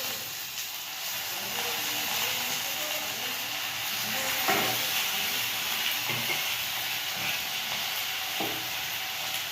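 Onions and soy sauce sizzling in hot oil in a pan, a steady hiss that starts suddenly. The pan is stirred, with a couple of sharp knocks of the spatula.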